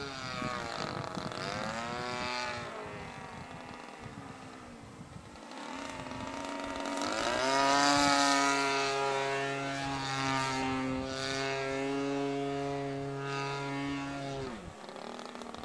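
Radio-controlled aerobatic model aeroplane's engine and propeller in flight. The note swoops down and up in the first few seconds, then fades. About seven seconds in it swells to a loud, steady pitch, and it drops off sharply near the end.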